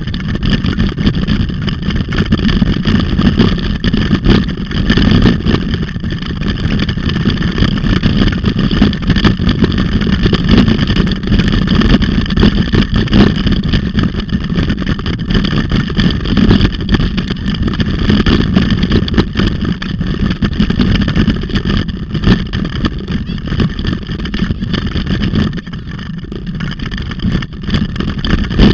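Loud, steady rumble of wind buffeting the microphone and bicycle tyres rolling on a gravel road, heard from a camera on the handlebars of a bike being pulled along fast by a sled dog.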